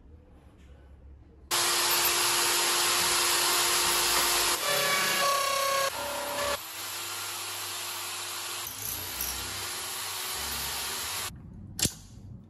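Corded electric drill in a drill stand switches on and runs steadily while its bit is fed into a stainless steel bolt clamped in a vise. A whining tone comes in for about a second and a half, the drill runs quieter from about six seconds in, and it stops shortly before the end. A sharp metal clank follows.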